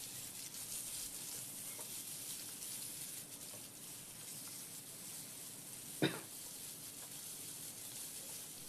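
Chicken leg quarters sizzling in oil in a nonstick frying pan, a steady hiss as they sear and are moved about with a spatula. A single brief sharp sound about six seconds in.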